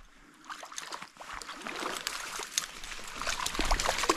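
Small hooked brook trout splashing and thrashing at the water's surface close to the shore, the quick irregular splashes building louder from about halfway through.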